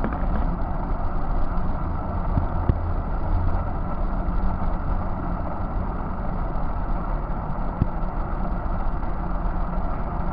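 Steady low rumble of a departing R46 subway train running through the tunnel.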